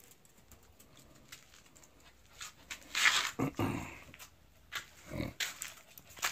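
A small dog making short, loud vocal sounds: a cluster about three seconds in and another a little after five seconds.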